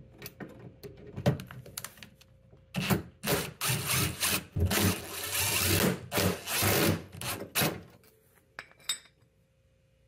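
DeWalt 20V cordless drill backing screws out of a refrigerator's bottom door-hinge bracket, running in several short spurts. A couple of light metallic clicks come near the end.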